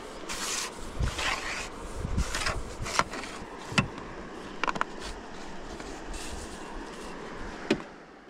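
A series of sharp knocks and scrapes with a few short rushing noises, in the first half, from handling in a small fishing boat.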